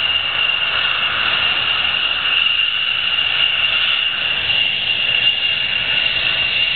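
Dutch F-16's Pratt & Whitney F100 turbofan at taxi power, a steady high whine over an even rushing noise.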